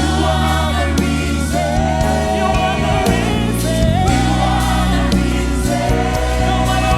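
Live gospel worship music: singers and a choir holding long, wavering sung lines over a band with steady bass and drums.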